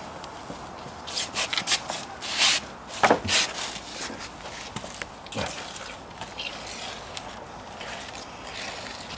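Mortar being squeezed out of a grout bag onto a concrete balustrade base, with a run of short, sharp spurts in the first few seconds, the loudest about three seconds in, and a few weaker ones later.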